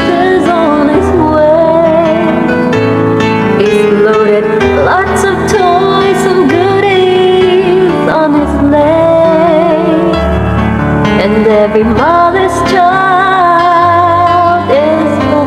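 A solo voice singing a slow melody, holding long notes with vibrato, over instrumental accompaniment of sustained chords and bass.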